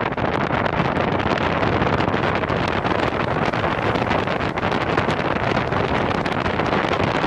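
Wind rushing over the microphones of a Samsung Gear 360 camera mounted on the roof of a moving car: a steady, dense noise with small crackles running through it.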